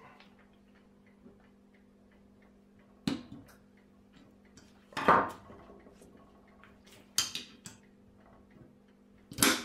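Screwdriver levering the spring clips of a brake pad on a GM W-body-derived single-piston rear brake caliper, with faint scraping ticks and four sharp metallic clacks about two seconds apart as the outer pad is worked into place; the clack about halfway through is the loudest.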